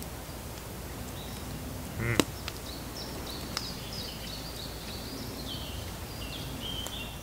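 Small birds chirping in short high phrases over a low, steady background noise. About two seconds in, a short pitched sound rising in pitch ends in a single sharp click, the loudest thing here.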